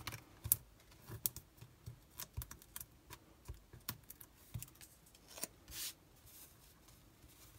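Fingers and fingernails handling small paper pieces on a craft mat: irregular light clicks and taps, with a short scrape of paper about six seconds in, as a die-cut paper sentiment is mounted on a foam adhesive dimensional and pressed onto a card.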